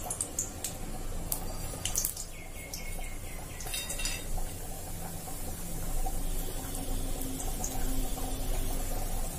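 Black peppercorns and cumin seeds sizzling in hot ghee in an aluminium kadai, the tempering for ven pongal, with a few sharp crackles in the first few seconds. A low steady hum runs underneath.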